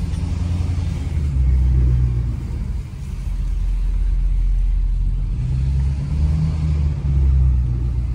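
Ford F-250 Super Duty's engine and loud exhaust heard from inside the cab while driving slowly, swelling and rising in pitch twice as the truck accelerates and then eases off. The drive is a test for a lifter-like tap that shows up around 1500 to 2000 RPM.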